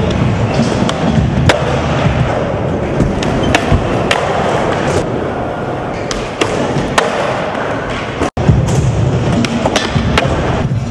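Skateboard wheels rolling over a smooth skatepark floor, with sharp clacks from the board's tail and trucks as tricks are popped and landed. The sound drops out completely for an instant about eight seconds in.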